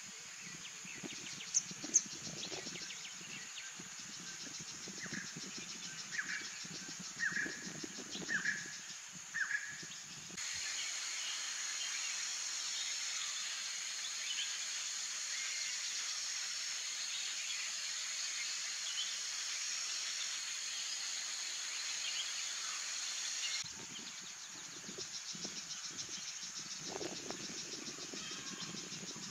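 Natural outdoor ambience of insects trilling steadily, with a few short bird chirps in the first ten seconds. About ten seconds in the background switches abruptly to a denser, even insect drone, and switches back near the end.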